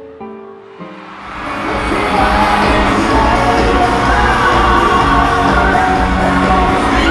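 Pop music: a few separate plucked notes, then about a second in the track swells into a loud full band with a steady beat.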